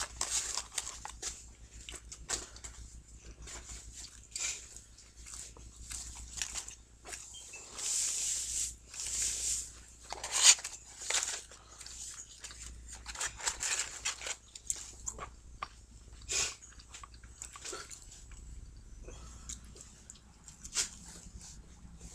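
Paper rustling and crinkling from a McDonald's french fry carton being handled, with bites and chewing of fries in between, in short irregular bursts.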